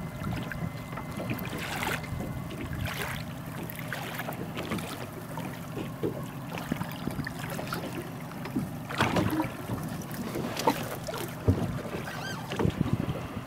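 Water slapping against the hull of a small fishing boat on open sea, with wind buffeting the microphone. The slaps come irregularly, with a few louder ones about two-thirds of the way through.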